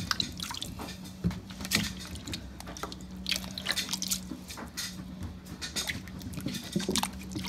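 Water splashing and sloshing in a stainless-steel sink as hands rub and turn fruit and sweet potatoes, in many short irregular splashes, over a steady low hum.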